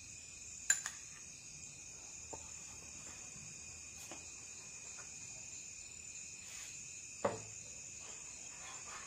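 Crickets chirping steadily, with a few sharp clinks of a metal spoon against the plate and bowl, the loudest about a second in and near the end.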